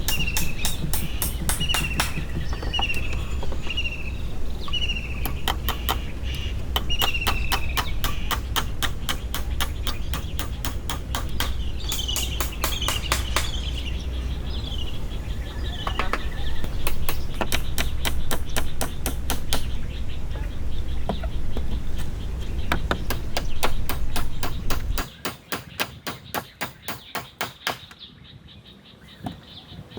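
Rapid repeated knocks of a hand tool striking, as in chopping or hammering. A bird calls a short falling note again and again over the first several seconds and again briefly around the middle. A low steady rumble underneath cuts off suddenly about 25 seconds in, leaving the knocks quieter.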